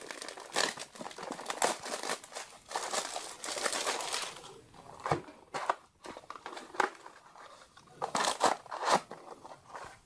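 Foil trading-card booster pack crinkling and tearing as it is handled and opened, a dense run of crackling about two to four seconds in and more bursts near the end.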